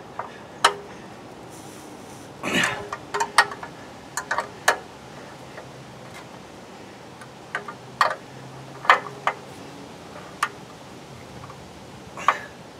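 Scattered metal clicks and clinks, some in quick little clusters, as a wrench and the cap of an EZ oil drain valve on a truck's oil pan are handled and the cap is put back on.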